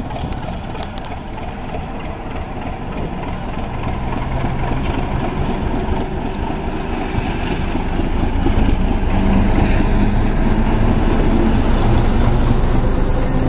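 ChME3 diesel shunting locomotive's six-cylinder diesel engine running as it pulls a passenger train away from a stop. It grows louder as the locomotive approaches, and the engine is loudest as it passes alongside.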